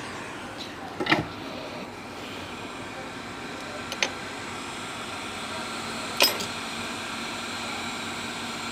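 Steady rushing air from a hot-air rework station, used to desolder a power IC from a phone motherboard. Three sharp clicks of metal tools come about one, four and six seconds in.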